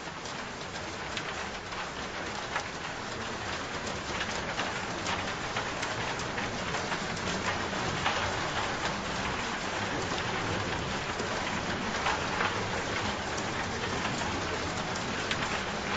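Steady rain falling, a continuous hiss dotted with the sharp ticks of individual drops hitting a surface; it builds a little over the first few seconds, then holds steady.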